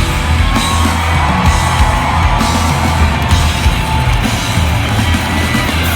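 Live rock band playing an instrumental break: electric guitar holding long sustained notes over heavy bass guitar and drums.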